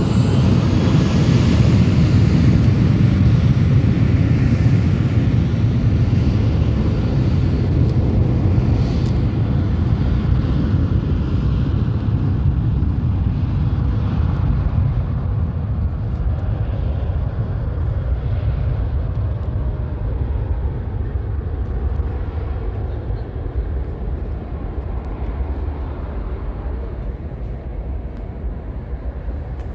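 Jet airliner's engines at takeoff thrust, a loud low rumble. It is strongest in the first few seconds and slowly fades as the aircraft lifts off and climbs away.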